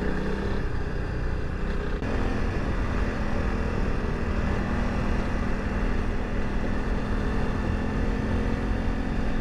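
Honda CRF300 Rally's single-cylinder engine running steadily while riding, under a continuous low rumble of wind and road noise; the engine note holds level from about two seconds in.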